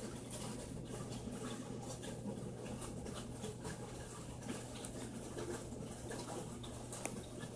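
Steady low hum of running aquarium equipment, with faint hiss and light irregular clicks and ticks scattered throughout.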